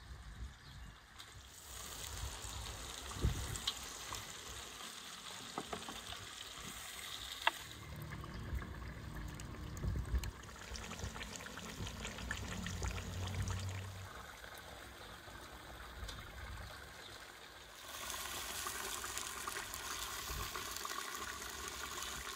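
Marinated rabbit pieces sizzling in hot oil in a cast-iron kazan over a wood fire. The hiss starts about two seconds in, dies down in the middle, then swells again near the end as the meat is stirred. Scattered knocks of a wooden spatula and a low rumble midway are heard over it.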